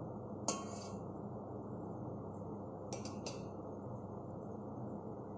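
Stainless steel spoon clinking against a steel pot of syrup: one clink about half a second in, then two in quick succession about three seconds in, over a steady low hiss.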